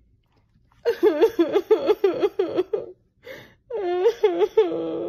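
A person laughing in two runs of quick, rhythmic pulses about a second apart. The second run ends on a rising note.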